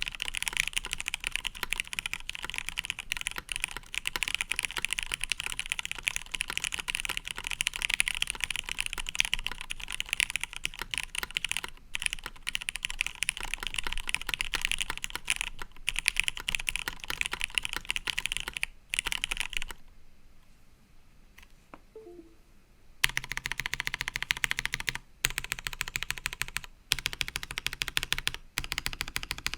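Typing on a Matrix 1.2OG custom mechanical keyboard with lubed, filmed Retooled Cherry MX Black linear switches on a top-mounted aluminium plate, under CRP Tulip keycaps: a dense, steady patter of keystrokes. It stops for about three seconds around two-thirds of the way through, then resumes in shorter runs with brief pauses.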